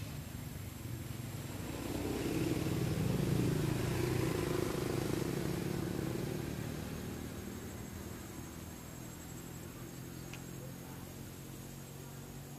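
A motor vehicle passing: its engine sound swells about two seconds in and fades away over the next several seconds.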